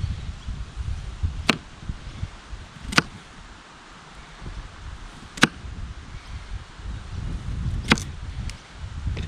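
Knife chopping vegetables on a cutting board: a handful of sharp knocks, a second or two apart, over a low rumble.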